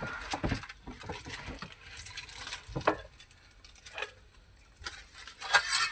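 Scattered light metal clicks and taps of utensils handling food on a charcoal barbecue grill, with a denser, louder flurry of clicks near the end.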